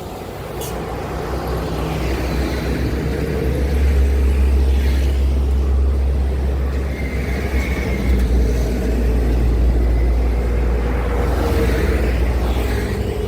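Heavy diesel trucks passing on a highway. A deep engine rumble builds over the first few seconds and then holds, while tyre and engine noise swells and fades as vehicles go by, about five seconds in and again near the end.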